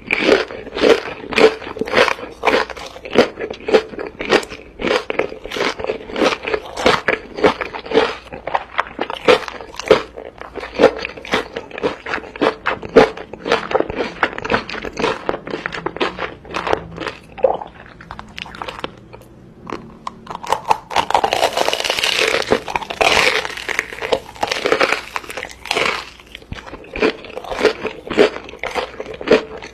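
Close-miked crunchy chewing and biting of food, with sharp crunches coming about twice a second. About two-thirds of the way in, a louder hissing noise runs for several seconds.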